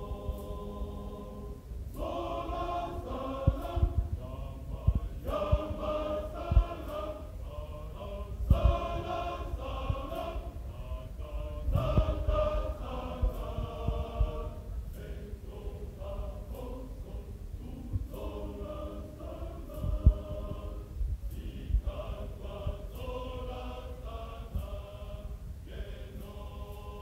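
Men's choir singing in parts without accompaniment, in phrases with short breaks between them. A steady low rumble and frequent dull knocks sit underneath.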